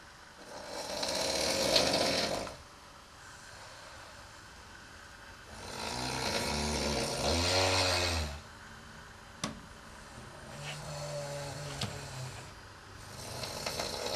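A sleeping person snoring loudly: four long, noisy snoring breaths about four seconds apart. The second has a low buzzing drone in it, and the third is quieter.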